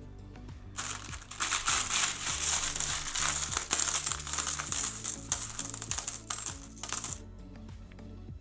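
A mass of loose metal coins clattering and jingling together, as from hands sifting through a tub of mixed world coins. It starts about a second in and stops about a second before the end.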